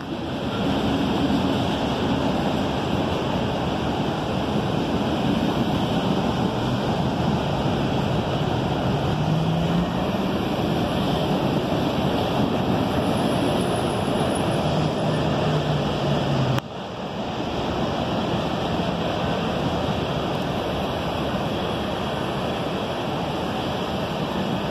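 CSX freight train of hopper and tank cars rolling past, a steady rumble of wheels on rail mixed with wind on the microphone. The sound drops out briefly about two-thirds of the way through.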